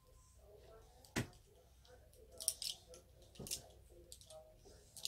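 Small objects being handled at close range: one sharp click about a second in, then a few short, crisp rustles.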